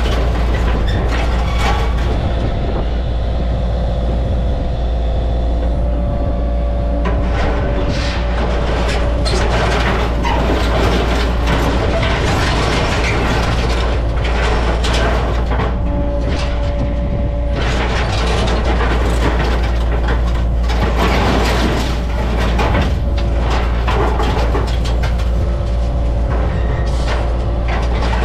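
Yanmar mini excavator's diesel engine running steadily under load, with a higher whine at times as the hydraulics work. Crumpled, fire-burned steel roofing sheets scrape, crunch and clatter as they are gripped and dropped into a metal scrap trailer.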